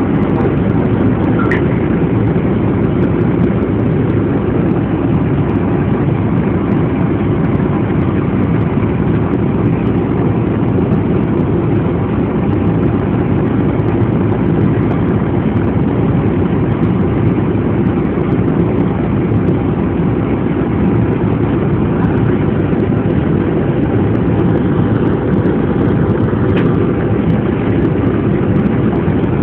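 Steady low rumble of a city bus's engine and running gear, heard from inside the passenger cabin while the bus moves slowly in traffic.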